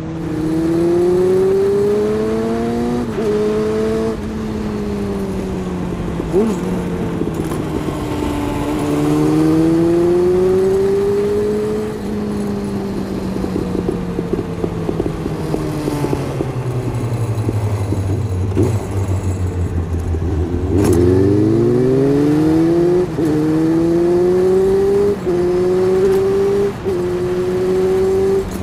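Suzuki Bandit GSF 600 S air/oil-cooled inline-four with an aftermarket Takkoni exhaust, heard from under the seat while riding: the revs climb and drop at each upshift, sink to a low burble as the bike slows around the middle, then pick up sharply and run through several more quick upshifts. Loose tools under the seat clink throughout.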